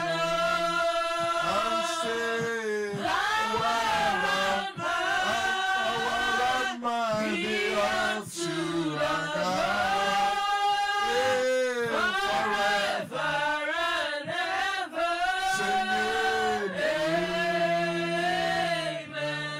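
Worship singing led by a man's voice, a slow chant-like melody with long held, sliding notes; it cuts off abruptly at the end.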